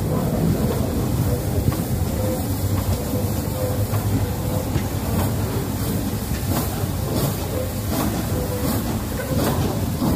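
A train hauled by a USATC S160 2-8-0 steam locomotive running, heard from an open carriage window: a steady rumble with repeated sharp clicks.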